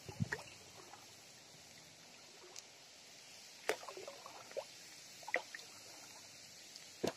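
Oars of a small inflatable rowboat dipping and dripping as it is rowed, with a few short splashes and knocks spaced roughly a second apart.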